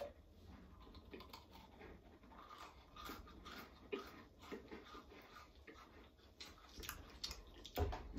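Faint crunching of crisp vanilla wafer cookies being chewed, a scatter of short crisp cracks, with a louder thump near the end.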